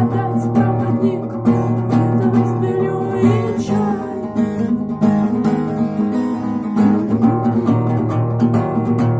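Acoustic guitar strummed in a steady rhythm, chords ringing under frequent sharp percussive strokes, in keeping with a strum that uses a knock on the strings.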